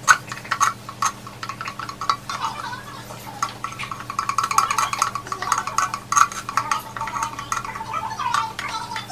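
Metal cans of two-part epoxy resin clinking and tapping as one is tipped and emptied into the other, with many sharp clicks and a scraping sound. A steady low hum runs underneath.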